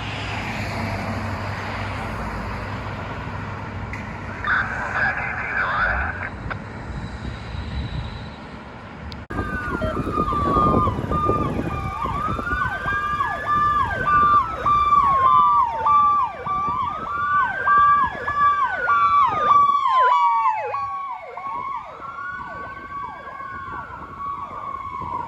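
Federal Signal PowerCall electronic sirens come in about nine seconds in, after a stretch of traffic noise. A slow wail rises and falls about every four seconds, layered over fast falling yelp sweeps and a steady tone that breaks off briefly at a regular beat.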